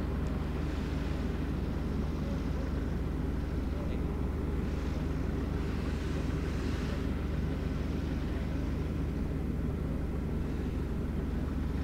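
Light aircraft piston engine idling steadily with its propeller turning, a constant low hum.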